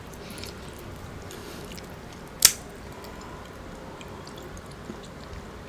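Hands handling a cob of Mexican street corn close to the microphone: faint rustles over quiet room tone, with one sharp click about two and a half seconds in.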